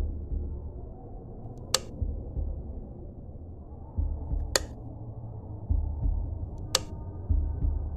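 Horror suspense score: a dull low drone with low thumps, several of them in pairs, broken by three sharp high clicks about two to three seconds apart.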